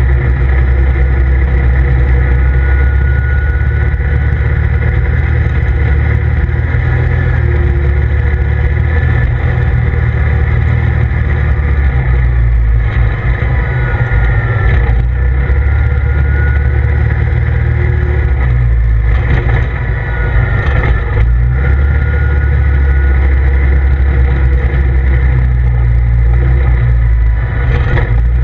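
CF Moto ZFORCE 800EX side-by-side under way, heard from inside its open cab: the 800 cc V-twin engine and drivetrain make a loud, steady low drone, with a thin whine that rises and falls. A few knocks come a little past the middle.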